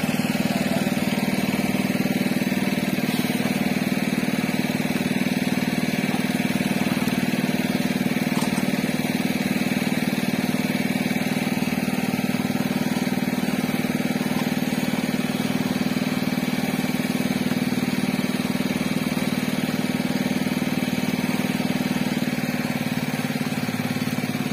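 Engine on a fishing boat running steadily at one unchanging speed, a constant low drone.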